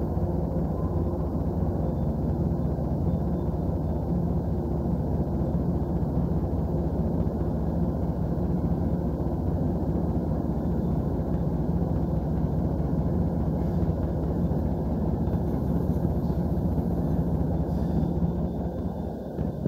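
MBTA commuter rail coaches rolling past on the adjacent track, giving a steady low rumble from wheels and running gear with a faint drone underneath. The rumble eases off near the end.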